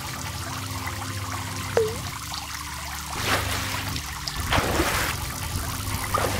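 Water sound effects: steady running water with a single drop-like plop a little under two seconds in, followed by three rushing swishes of water.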